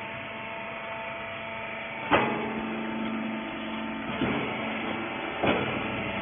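Hydraulic rag baler running: a steady motor-and-pump hum, broken by three sharp metallic clunks about two, four and five and a half seconds in.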